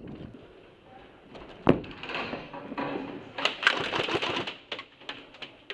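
Airsoft rifle firing in rapid bursts of clicking shots, with one sharp crack about a second and a half in. The shots echo off close walls.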